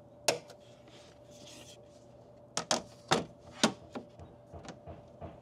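Handling clatter of a bamboo cutting board and knives at a stainless-steel tailgate table: a handful of sharp wooden clacks and knocks with some rubbing, as the board is set down and slid flat and the knives click against the magnetic panel. Most of the knocks come between two and four seconds in.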